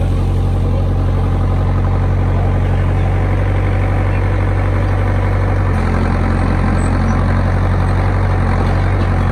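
A large engine idling steadily with a low, even hum; its note shifts slightly about six seconds in.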